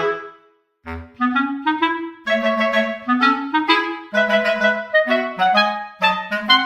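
Background music led by a clarinet playing a melody of short, separate notes, with a brief break just before the first second.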